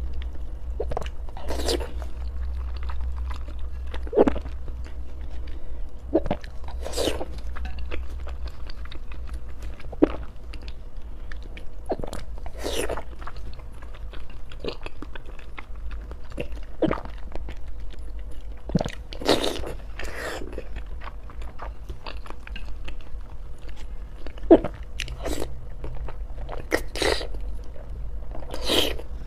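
Close-miked eating of eggs and spicy noodles: irregular bites and wet chewing sounds every second or few, over a steady low hum.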